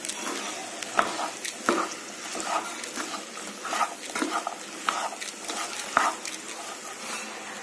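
A black plastic slotted spatula stirs and scrapes chopped okra around a pan, in irregular strokes about once a second. A faint sizzle of frying over low heat runs underneath.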